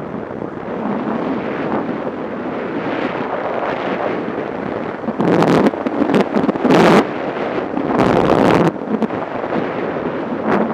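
Wind buffeting the microphone of a camera mounted on a moving motorcycle: a steady rush that swells into louder gusts a little past the middle and again about a second later.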